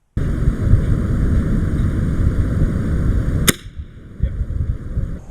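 Air rifle fires a single sharp shot about three and a half seconds in, over a loud rumbling noise that starts suddenly near the start and drops off right after the shot.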